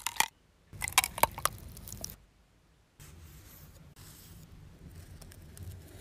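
A metal spoon scraping raw abalone out of the shell, with several sharp clicks and scrapes in the first two seconds. From about three seconds in, a knife blade softly scores a grid into the abalone flesh on a wooden board.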